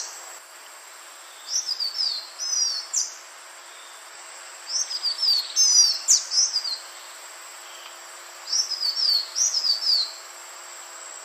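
Green iora singing: three bouts of quick, high, falling whistled notes, each a couple of seconds long, with short pauses between them.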